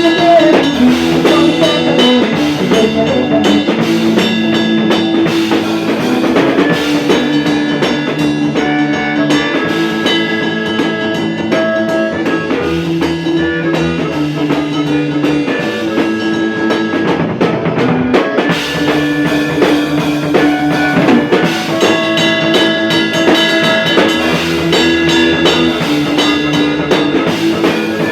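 Rock music: guitar over a drum kit beat.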